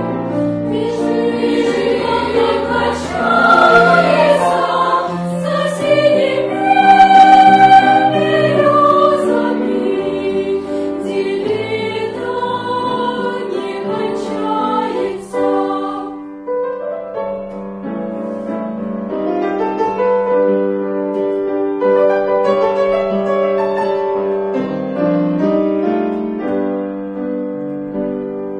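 Children's choir singing in harmony: a loud passage in the first half, then a softer section of held notes after about sixteen seconds.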